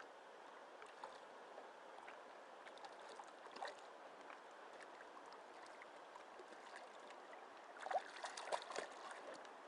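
Faint flowing river water, with a few brief sharper sounds about eight seconds in.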